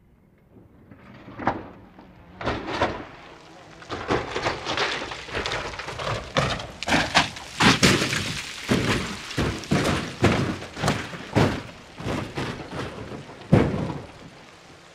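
A roll-caged car tumbling down a rocky slope: its metal body hits the ground again and again while glass breaks. The impacts come in an irregular run and are densest through the middle, with a last heavy hit near the end.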